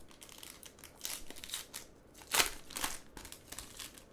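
Trading-card packs and cards being handled: a run of short crinkling, scratchy rustles, the loudest about two and a half seconds in.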